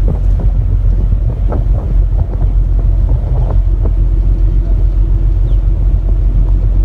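Heavy wind buffeting the microphone on the deck of a fishing boat under way, with the boat's engine running steadily underneath.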